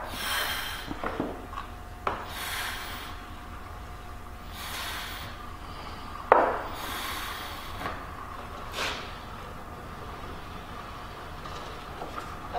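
Hand pump on a fluid extractor being worked to pull a vacuum and draw fluid out of the motorcycle, slow strokes about every two seconds, each a hissing, rasping whoosh. A sharp knock about six seconds in.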